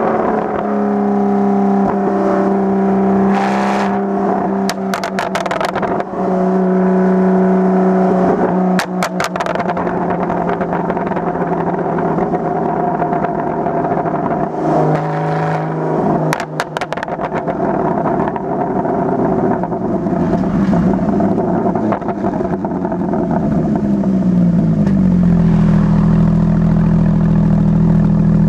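Straight-piped Porsche Boxster 981 flat-six exhaust, heard from the rear of the car on the road, running at fairly steady revs with a few short sharp clicks along the way. Near the end the engine note shifts in pitch and grows deeper and fuller as the revs change.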